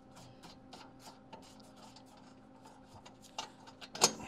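Scattered light clicks and rubbing as gloved hands handle a steel separator plate against the back of an engine block, with one sharper knock about four seconds in.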